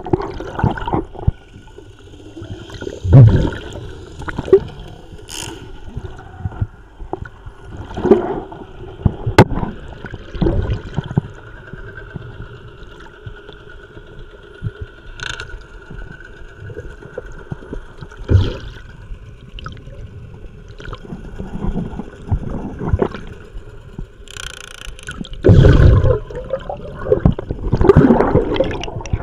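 Underwater sound picked up by a diver's camera: water gurgling and rushing, with irregular thumps and swishes of movement through the water, over a faint steady hum.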